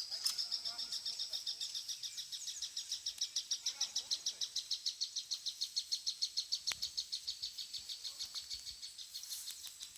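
A wild animal's long, high-pitched trill of about six even pulses a second, sinking slowly in pitch, with a single sharp click about two-thirds of the way through.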